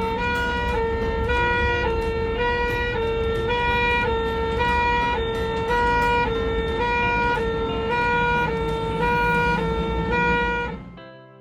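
Ambulance two-tone siren switching back and forth between a high and a low note over a low engine rumble. It cuts off near the end as music begins.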